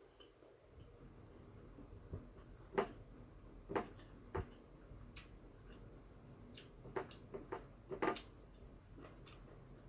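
Eating sounds: about half a dozen light clicks and taps, scattered through, of cutlery against a plate, over the faint steady hiss of an electric fan.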